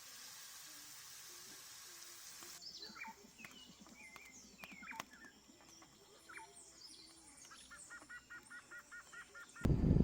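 Birds calling: scattered short, sliding whistled chirps, then a quick run of about nine repeated notes near the end. It opens on a steady high hiss that cuts off about two and a half seconds in, and a loud low rumble starts right at the end.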